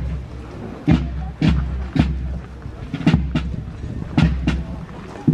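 Military drum corps beating a marching cadence on rope-tensioned side drums and a bass drum, with heavy bass-drum strokes every half second to a second between sharp snare strokes.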